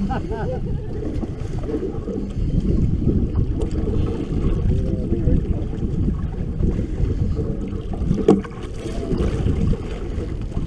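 Heavy wind noise on the microphone aboard a boat on choppy open water, with faint voices in the background and a single sharp knock about eight seconds in.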